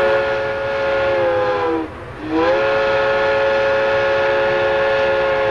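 Train whistle sounding two long blasts, each a chord of several tones that sags in pitch as it dies away. The first ends about two seconds in, and the second, longer blast follows after a brief gap.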